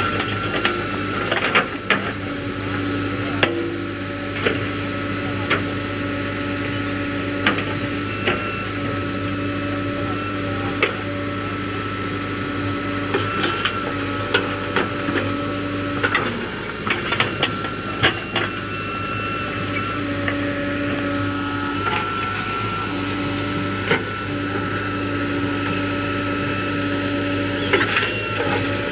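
JCB 3DX backhoe loader at work: the engine runs steadily while the hydraulics come on and off every few seconds as the arm and bucket move, with scattered metallic clanks and knocks. A steady high hiss sits over it throughout.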